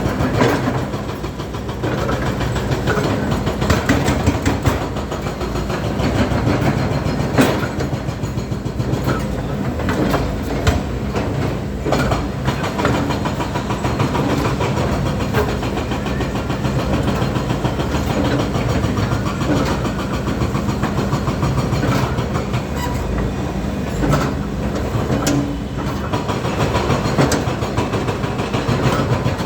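Volvo hydraulic excavator's diesel engine running steadily, with frequent irregular metallic clanks and knocks over it.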